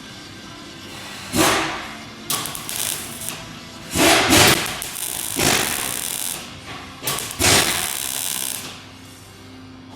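Shop tool noise in short bursts, about five in a row, each half a second to a second long, over a steady low hum.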